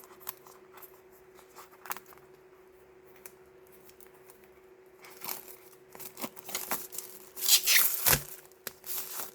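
Packaging being torn open and crinkled by hand. A few light clicks and rustles are followed, about five seconds in, by a run of tearing and crinkling that is loudest near the end, with a single thump just after the loudest part.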